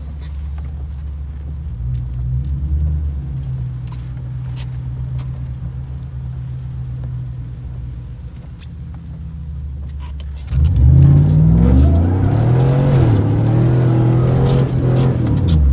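Chevrolet Avalanche V8 heard from inside the cab, running low and steady for about ten seconds, then revved hard with its pitch climbing and swinging up and down for about five seconds while the truck is spun, falling back near the end.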